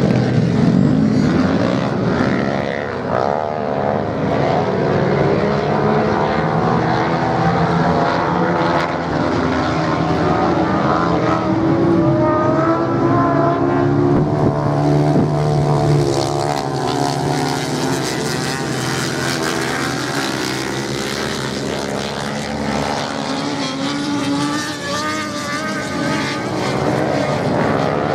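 Several racing motorcycle engines revving hard together, their pitches rising and falling as the riders accelerate and change gear.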